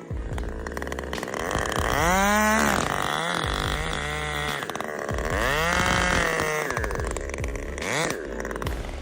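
An engine revving up and back down twice, a few seconds apart, over a steady low running hum.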